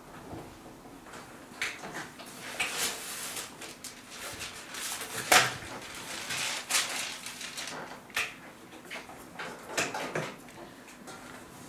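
Irregular kitchen handling sounds: utensils and bowls knocked, scraped and set down on the counter as sugar and fat are tipped into a mixer, with one sharp knock about five seconds in.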